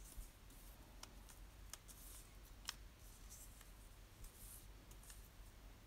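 Faint paper rustling and a few light clicks as a cut-out paper picture and a pressed fern frond are slid about and pressed onto a journal page by hand.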